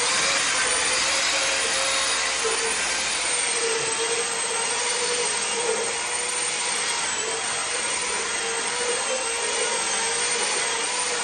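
Electric polishing machine running steadily with a constant whine, buffing the wax coat on a faux-marble wall finish.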